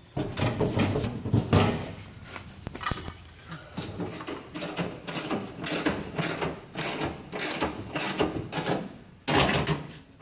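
Hand socket ratchet clicking in quick repeated strokes, about two or three a second, as a fuel-tank strap bolt is tightened. This comes after a louder rattle in the first couple of seconds.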